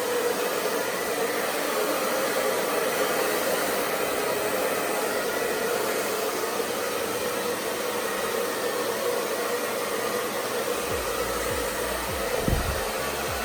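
Handheld ionic hair dryer running steadily, blowing air through hair. It is a constant rush of air with a faint steady hum in it. A few low bumps come near the end.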